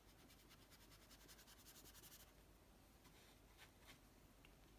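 Near silence, with a faint soft rubbing of a watercolour brush stroking wet paint across hot-press paper for the first two seconds or so.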